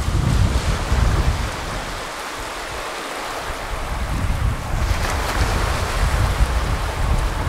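Small waves breaking and washing up a sandy shore in a steady hiss that swells again about five seconds in as the next wave breaks. Under it, wind buffets the microphone in low gusts that drop away briefly in the middle.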